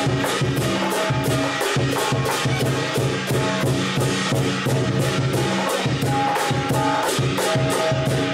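Lion dance percussion: a large drum and clashing cymbals beating a fast, steady rhythm of about four to five crashes a second.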